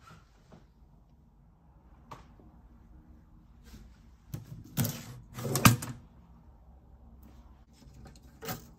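Knocks and rattles from a watch-cleaning machine's glass front door being opened, loudest around halfway through, then a sharp click near the end as the mesh parts basket is fitted onto the machine's holder.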